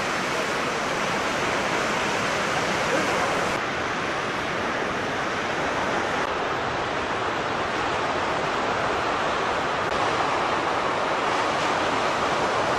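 Ocean surf breaking and washing up a sandy beach: a steady rushing noise of waves.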